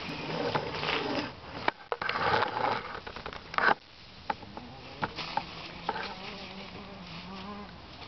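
A fly buzzing close by: a steady, slightly wavering hum from about five seconds in until just before the end. Before it come rustling and sharp knocks as a garden hose is handled and dragged.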